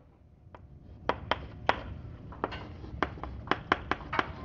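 Chalk tapping against a blackboard while writing: a quick, irregular run of short, sharp taps starting about half a second in.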